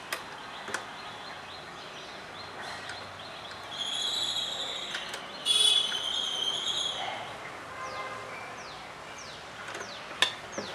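Birds chirping, with a run of high calls about four seconds in and several short falling chirps near the end, over low room noise. A few light clicks come from parts being handled at the sewing machine's presser foot.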